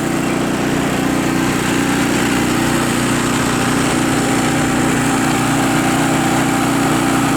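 Briggs and Stratton engine of a small Coleman 1,750-watt portable generator running steadily with no load, pretty quiet for its size. The choke is left partly on, as it needs to be for this engine to run stably.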